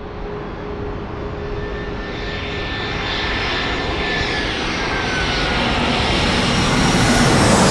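Twin-engine jet airliner on final approach with gear down, its engines running at approach power. A steady jet roar with a high whine that slowly slides down in pitch grows louder as the plane comes in low overhead, and is loudest near the end.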